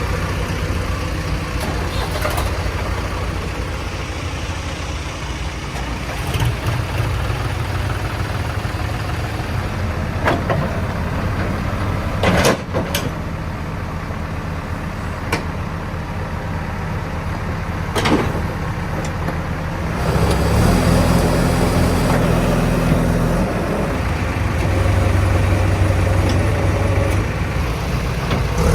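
JCB 3DX backhoe loader's diesel engine running as it digs and loads mud, with a few sharp knocks. The engine revs up about two-thirds of the way through and again near the end.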